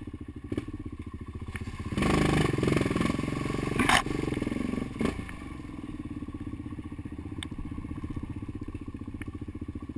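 Sport quad (ATV) engine running on a muddy trail, throttled up harder for a few seconds from about two seconds in, with a sharp knock near four seconds, then settling to a steadier, quieter run.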